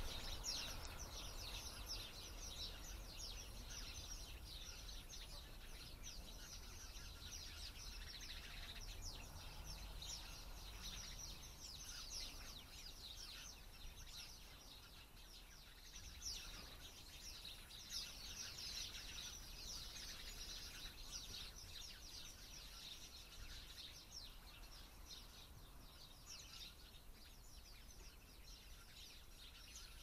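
Many small birds chirping and twittering together at once, unseen inside a dense bush, in a dense unbroken chorus of short high calls over a faint low background rumble.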